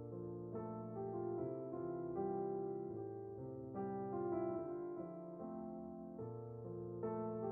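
Background music: gentle piano or electric keyboard playing slow chords and a melody.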